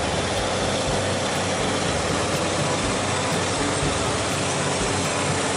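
Heavy semi-tractor dump truck's diesel engine running steadily.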